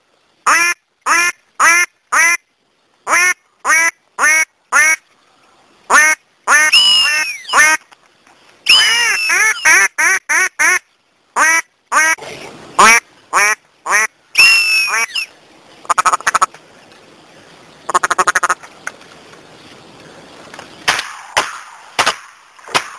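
Ducks quacking loudly: a fast run of short quacks, each dropping in pitch, then several longer drawn-out calls. Two quick buzzy chatters follow in the second half.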